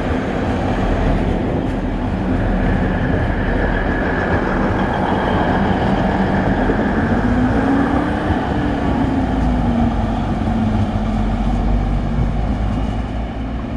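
Two coupled DB class 612 diesel multiple units moving off, their diesel engines running under load with rail noise. The engine note rises and then falls about halfway through, and the sound fades near the end as the train draws away.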